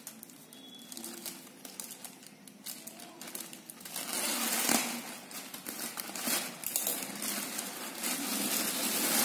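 Plastic courier mailer bag crinkling and rustling as it is handled and pulled open by hand, with sharp crackles of the film, growing louder from about four seconds in.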